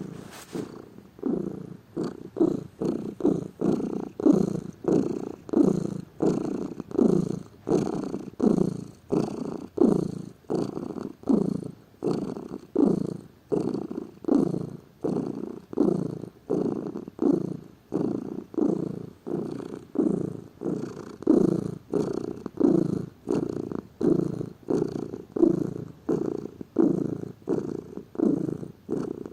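Domestic cat purring steadily, a regular run of swelling pulses with each breath in and out, about three every two seconds.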